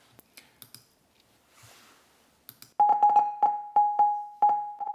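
Rapid series of short synthesized browser beeps at one fixed pitch, about three or four a second, starting about three seconds in. They are generated by the browser-beep JavaScript library, which sounds each time the sorting visualization's bars move. A few faint clicks come before them.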